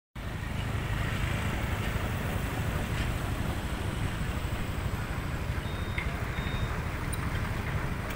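Steady outdoor background noise with a low rumble, cutting in abruptly at the start; no single event stands out.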